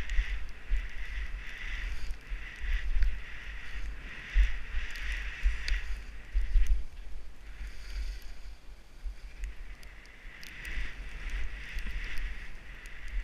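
Skis sliding over snow with a swelling and fading hiss, while wind buffets the helmet-mounted microphone in gusty low rumbles.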